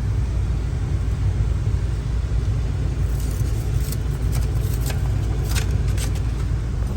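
Steady low rumble of a running gas furnace, with a few light clicks and taps between about three and six seconds in.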